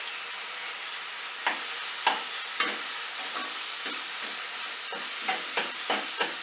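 Thick onion-tomato spice masala sizzling in hot oil in a non-stick kadhai, stirred with a steel spoon that scrapes through it in short strokes roughly every half second from about a second and a half in. The masala is being fried until its oil begins to separate.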